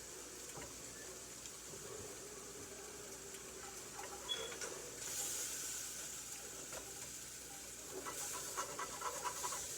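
Butter sizzling in a hot frying pan: a steady hiss that grows louder about five seconds in, with a few light clicks near the end.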